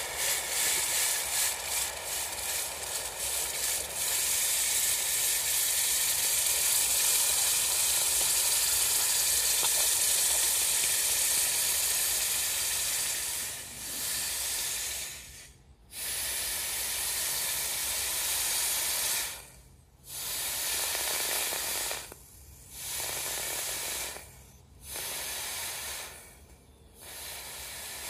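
A steady hiss that goes on for about thirteen seconds, then breaks into a run of separate hisses, each one to three seconds long, with short gaps between them.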